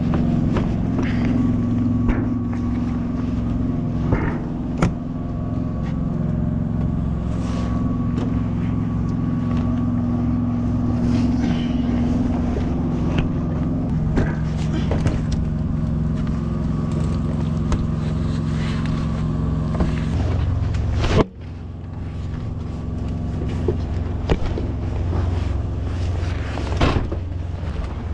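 Semi truck's diesel engine idling steadily, with scattered knocks and rattles of someone climbing into and moving about the cab. The sound breaks off abruptly for a moment about three-quarters of the way through, then the idle carries on.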